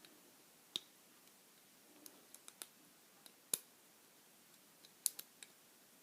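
Small, sharp metallic clicks of a lock pick and tension wrench working the pins inside a Yale five-pin closed-shackle padlock, starting again from the back pins. They come singly or in quick little clusters, the loudest about three and a half seconds in.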